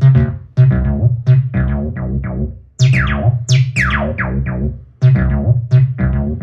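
Behringer TD-3-MO, a TB-303-clone bass synthesizer, playing a repeating acid bassline of short notes whose filter closes quickly on each. Around three to four seconds in, a few notes squelch with a bright resonant sweep falling in pitch.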